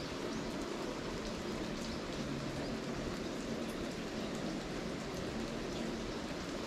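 Steady rain falling, an even hiss of drops on the ground around.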